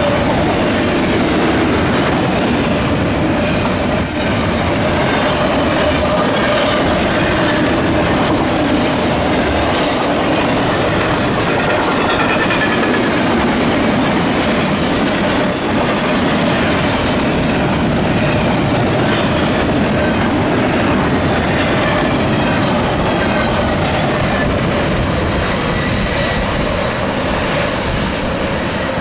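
Double-stack intermodal freight train rolling past at speed, its wheels clattering over the rails, with scattered sharp knocks and a steady whine under the rumble. It eases off slightly near the end as the last cars go by.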